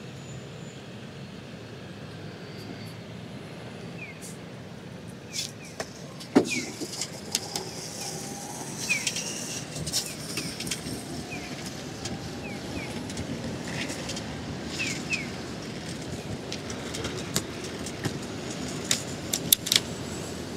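Bicycle riding through city traffic: a steady traffic hum, and from about five seconds in, sharp rattling clicks as the bike jolts over the crossing and paving stones.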